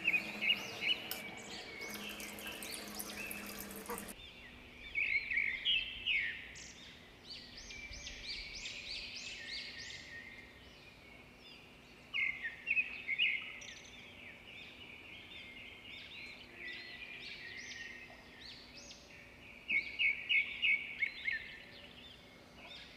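Small birds chirping in quick runs of short repeated notes, coming in clusters every several seconds. For the first four seconds there is a steady hiss with a low hum that cuts off suddenly.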